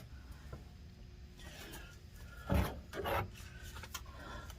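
Faint rubbing and scraping of hands working the shifter and its retaining clip into place, with two brief louder rubs about two and a half and three seconds in.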